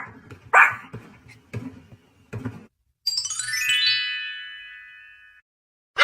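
A dog barking sharply, two loud barks and then several weaker ones, stopping after about two and a half seconds. After a short pause, a descending musical chime sweep rings out and fades, a transition sound effect.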